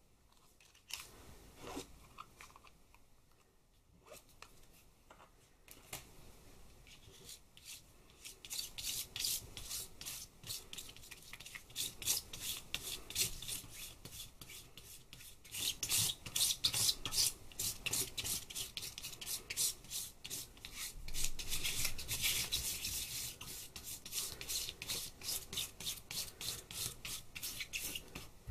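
Palette knife spreading and dabbing thick black oil paint across a plastic sheet: a fast run of short scraping, smearing strokes that starts about eight seconds in and grows busier. A few faint clicks come before it as the paint tube is opened.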